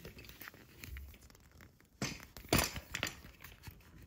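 Handling noise from a plastic office-chair caster turned in the hands: small clicks and rustles, then two sharper knocks about two and two and a half seconds in.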